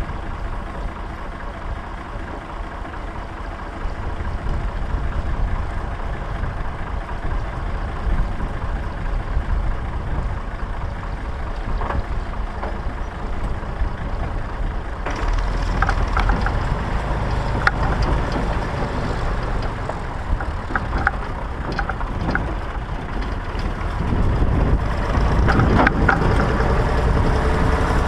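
Massey Ferguson 135 tractor engine running steadily under way. About halfway through the sound turns brighter, with irregular clanks and rattles that grow louder toward the end.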